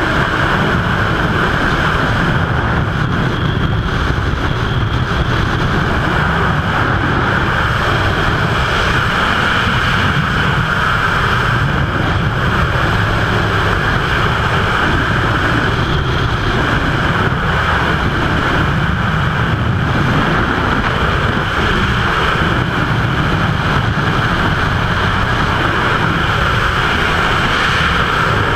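Freefall airflow rushing over a skydiving camera's microphone: a loud, steady wind rush.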